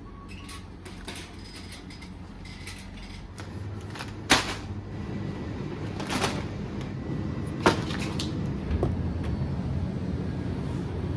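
Three sharp knocks or clacks, roughly one and a half to two seconds apart, with a few fainter ticks, over a steady low rumble.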